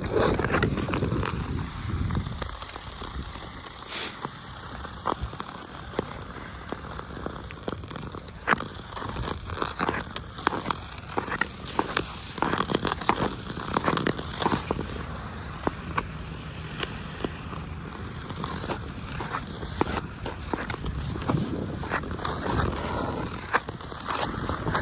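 Ice skate blades scraping and gliding over pond ice, with many scattered sharp clicks and knocks of hockey sticks and pucks on the ice. Wind rumbles on the microphone at the start and again near the end.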